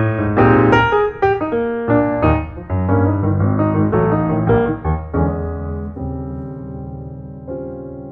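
Background piano music: a run of notes, then held chords slowly fading out as the piece ends.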